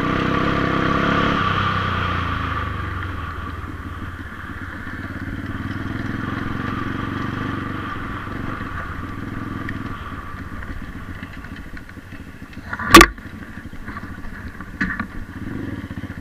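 125cc pit bike's single-cylinder engine running under throttle, then easing off to a softer, lower run as the bike rolls on. About thirteen seconds in comes one sharp, loud knock, and a smaller one follows about two seconds later.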